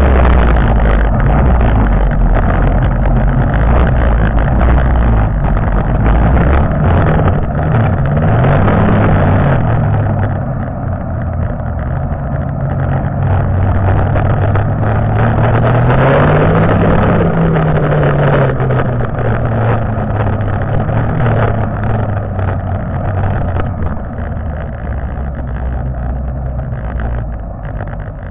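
1992 Arctic Cat Panther two-up snowmobile's two-stroke engine running under way, its pitch rising and falling as it is revved up and eased off several times, most clearly about eight, sixteen and twenty-one seconds in.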